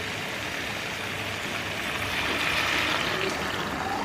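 Beef and spice paste sizzling in a steel wok over a gas flame, a steady hiss, with water poured in from a bowl near the end.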